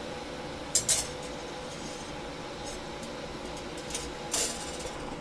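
Short metallic clinks and rattles of metal parts being handled over a steady electrical hum, with a sharp clank at the end.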